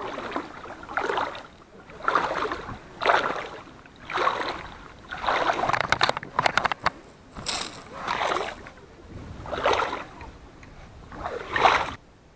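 Rhythmic splashing in water, about nine splashes roughly a second apart, a little longer and more jumbled around the middle.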